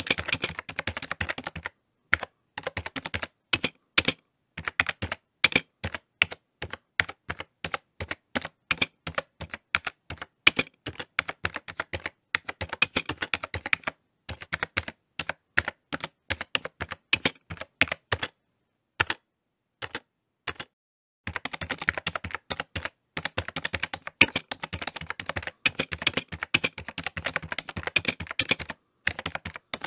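Rapid, irregular clicking in quick runs, broken by short pauses, the longest about 19 to 21 seconds in.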